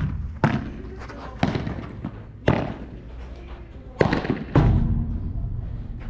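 Padel rally: the ball is struck by rackets and bounces off the court and walls, five sharp pops each with a short ring, about one a second, the last two close together and loudest near the end.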